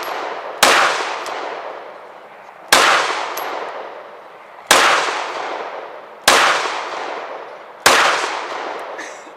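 Five single pistol shots fired slowly, one every one and a half to two seconds, each cracking sharply and trailing off in a long echo.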